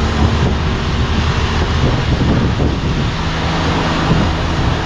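A motor vehicle's engine running steadily, mixed with loud wind and road noise.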